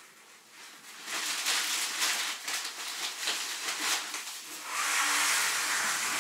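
Plastic grocery bags and packaging rustling and crinkling as groceries are unpacked by hand, starting about a second in.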